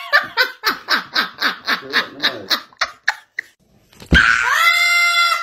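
A woman laughing hard in quick, regular bursts of about five a second. After a short pause there is a sudden knock, then one long, steady, high call.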